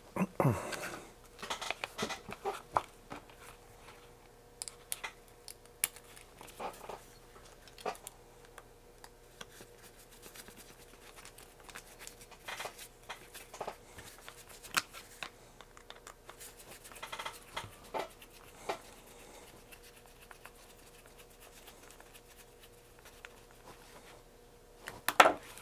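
Scattered small clicks, taps and scrapes of hand-assembling a robot kit: a small screwdriver driving screws through the wheels into the metal chassis, and parts being handled and set down on a wooden workbench.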